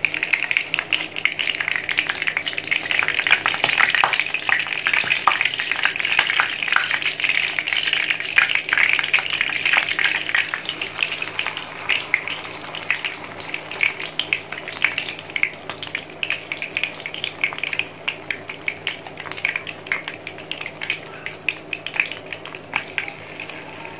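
Battered chicken wing pieces sizzling and crackling in hot oil in a frying pan as they are lowered in. The sizzle is dense at first and thins to scattered pops in the second half.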